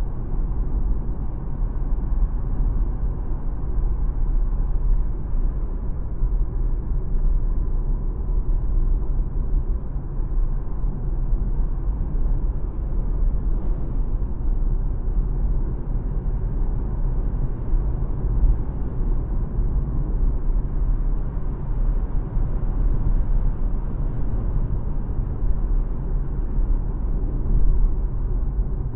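2024 Dacia Spring electric car driving at a steady pace: a steady low rumble of road and tyre noise with a faint steady whine above it.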